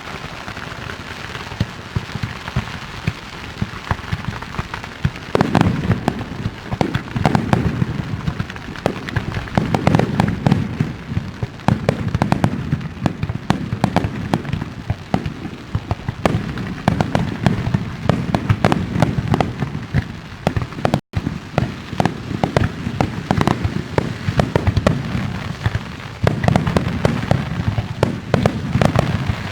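Aerial fireworks display: a dense barrage of shell bursts and crackling, with rolling booms that swell in waves several times. A split-second dropout comes about two-thirds of the way through.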